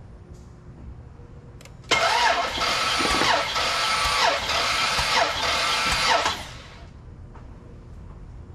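Starter motor cranking a Dodge Durango's Hemi V8 with its spark plugs removed for a compression test, so the engine turns over without firing. After a click, it cranks for about four and a half seconds and then stops.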